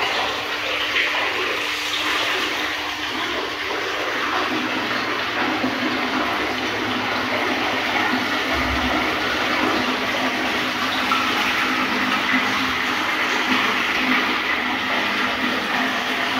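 Wall-fountain water pouring steadily from a spout and splashing into a pond, with a steady low hum underneath.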